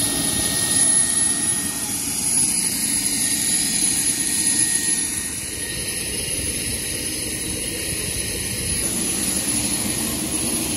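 Steady aircraft noise on an airport apron: a continuous rush with a thin, high steady whine above it. It is somewhat louder in the first half.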